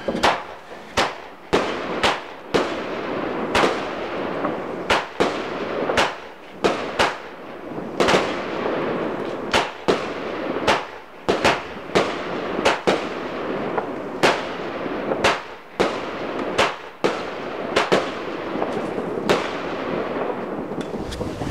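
Full House "Jackpot" firework going off: a run of sharp bangs, roughly one a second and irregularly spaced, with continuous crackling between them.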